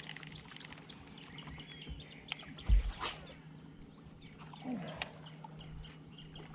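Small birds chirping repeatedly over a steady low hum, with one loud thump about two and a half seconds in.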